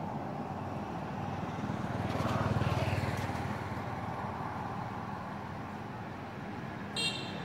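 Background road-traffic rumble, swelling as a vehicle passes about two seconds in, with a short high-pitched squeak near the end.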